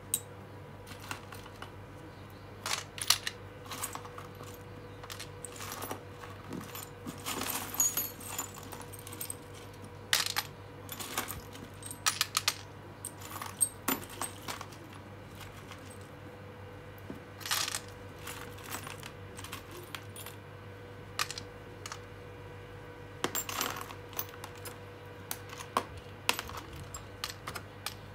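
A pile of old, partly rusty metal screws clinking and rattling as hands sift through them in a plastic tub and pick pieces out for sorting. The clinks come in irregular clusters of small sharp metallic clicks.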